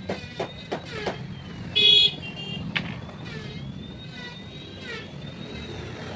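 Road traffic with one short horn toot about two seconds in, the loudest sound, and a few sharp clicks in the first second.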